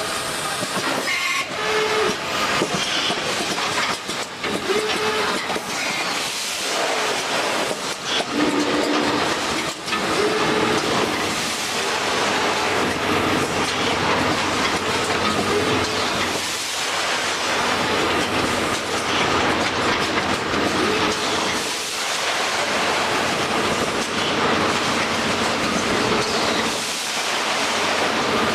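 Fully automatic bag-packing machine running: steady mechanical clatter with frequent clicks and hissing air from its pneumatic grippers, and brief hums that come back every few seconds.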